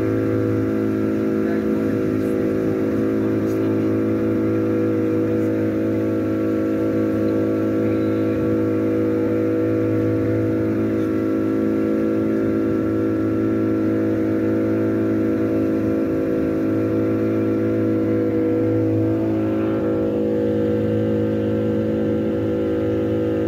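Motorboat engine running steadily at cruising speed, an even drone that does not rise or fall.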